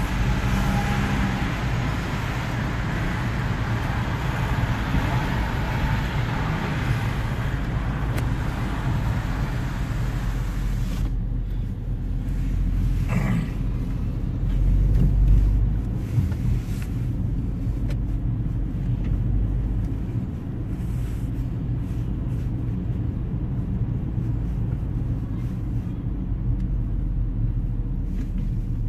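Car interior road noise while driving in city traffic: a steady low rumble of engine and tyres. For about the first eleven seconds a broad traffic hiss rides over it, then drops away suddenly, leaving the low rumble.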